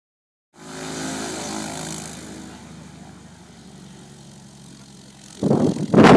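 Small propeller plane's engine running steadily, fading away over a couple of seconds into a low hum. About five seconds in, loud gusts of wind buffet the microphone.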